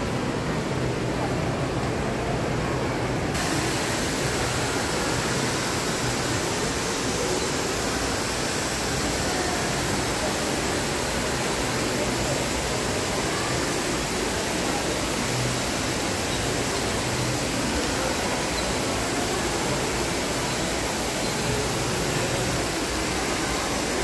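Jets of an indoor fountain splashing into their pool: a steady rushing hiss of falling water that turns brighter about three seconds in.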